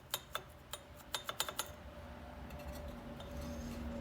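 A quick run of about eight sharp metallic clinks in the first second and a half, as metal parts of a disassembled air compressor are handled, followed by a faint low hum.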